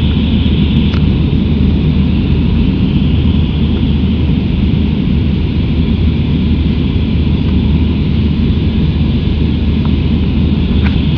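Steady cabin noise inside an Airbus A319 under way: a deep, even rumble of the jet engines and airflow with a constant hiss over it.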